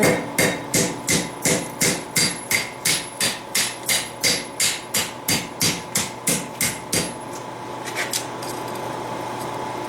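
Hand hammer striking steel on an anvil: a steady run of about twenty blows, roughly three a second, forming a strip of steel into a ring. The blows stop about seven seconds in, followed by a couple of light taps over a steady hum.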